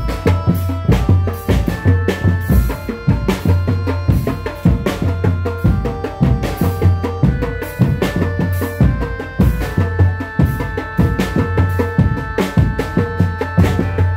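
Music with a dense, steady drum beat, held melody notes that step from pitch to pitch, and a deep bass pulse underneath.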